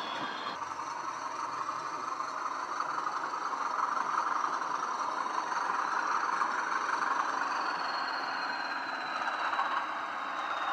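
Diesel engine sound from the SWD sound decoders in a pair of Bachmann OO gauge Class 20/3 model locomotives, played through small megabass speakers, running steadily with model wheels rolling on the track. A high whistle comes in about three-quarters of the way through and slowly falls in pitch as the locomotives approach.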